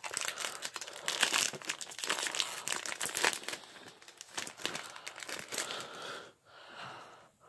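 Foil wrapper of a Pokémon card booster pack crinkling as it is handled and pulled open to get the cards out; the crinkling dies away about six seconds in.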